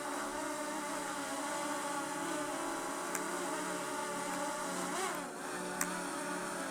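Autel Evo Nano+ quadcopter's propellers buzzing as it hovers low, coming in to land. About five seconds in the motor pitch swoops down and back up, and there are two faint clicks.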